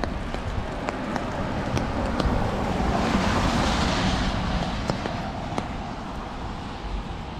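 A car passing on a wet road: the tyre hiss swells to a peak about three to four seconds in, then fades away. Footsteps on wet pavement tick regularly underneath.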